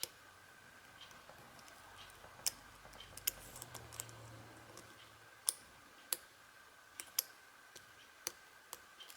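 Lock pick working the pins of a Union padlock under tension: about ten small, sharp metallic clicks at irregular intervals as the pin stacks are lifted and sprung back.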